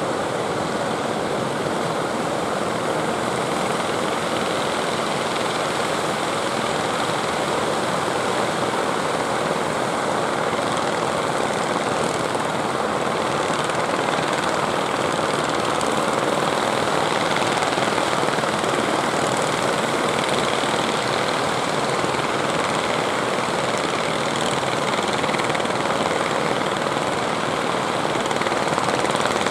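Steady, unbroken mix of surf and the running engines of motorised outrigger fishing boats coming in through the waves.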